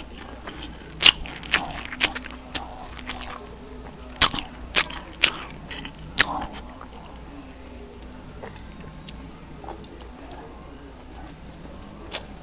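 Close-up eating sounds of a person eating pancit bihon rice noodles: a run of sharp, wet mouth clicks and smacks over the first six seconds or so, then quieter chewing.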